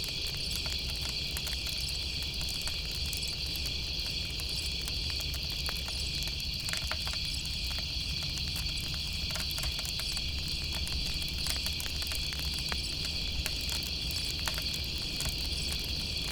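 A steady chorus of crickets and other insects chirping, with scattered small crackles from a campfire.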